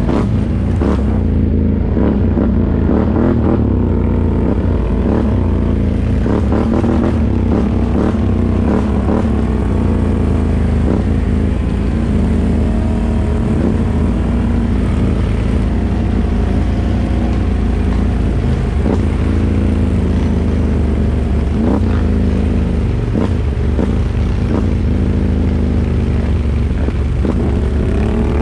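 ATV engine running under way on a dirt trail, its revs rising and falling with the throttle, with occasional knocks and clatter from the bumps.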